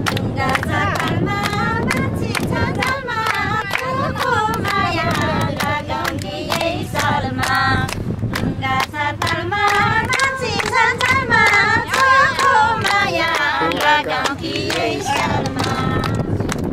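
A group singing a Nepali folk dohori song together, with hand claps keeping a steady rhythm throughout.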